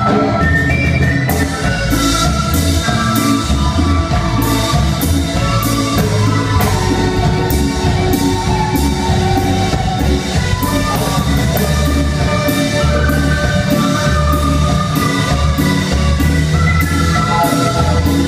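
Live cumbia andina band playing: a steady drum-kit beat with regular cymbal hits and bass under a stepping lead melody.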